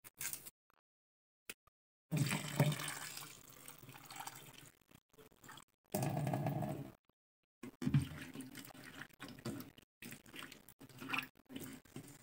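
Tap water running into a steel pot of cut cassava pieces, in short separate bursts, then hands swishing and rinsing the pieces in the water.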